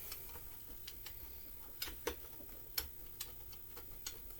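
Scattered light clicks and taps, about a dozen at uneven intervals, from engine parts being handled and fitted together by hand as a lawn mower engine case is reassembled.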